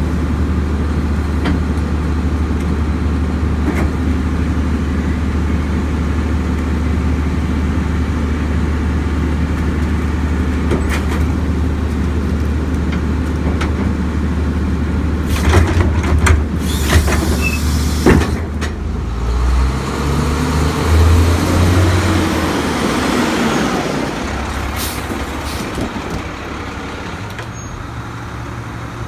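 Crane Carrier garbage truck's diesel engine idling steadily. About halfway through, a few sharp metal bangs and a loud burst of air hiss come from the Leach rear-loader's cart tipper and body. The engine then revs up and down in steps for several seconds.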